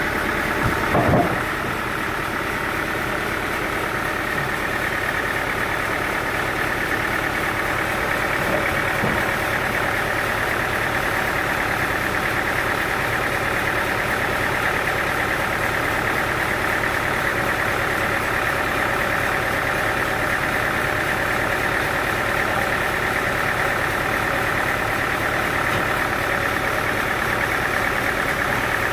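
Sawmill machinery running steadily with a continuous mechanical drone. There is a brief knock about a second in.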